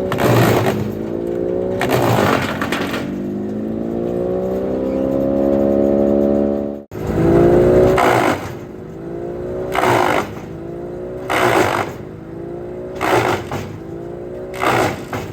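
Engine-driven wood chipper running with its engine pitch sagging and recovering under load, with a burst of chipping noise every second or two as offcuts and bark are fed in and shredded.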